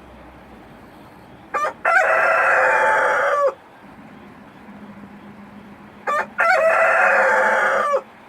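Rooster crowing twice, about four and a half seconds apart. Each crow is a short opening note, then a long held note of about a second and a half that drops off at the end.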